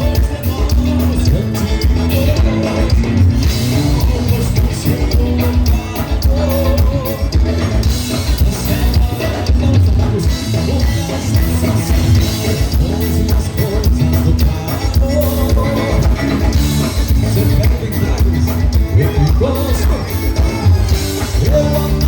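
Live band music with singing over a steady bass-and-drum beat.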